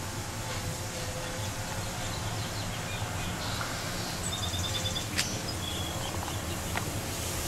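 Steady outdoor background noise with a low hum, and a small bird chirping a quick run of high notes about four seconds in. A single sharp click comes just after five seconds.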